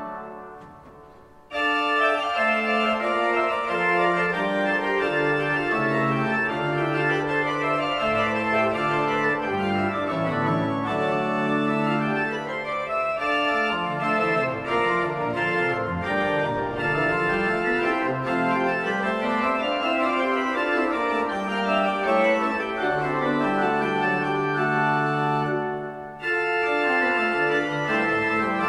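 Church pipe organ playing a contrapuntal piece. A held chord dies away in the room's echo, and about a second and a half in a new passage begins over a moving bass line; near the end the music breaks off briefly and starts again.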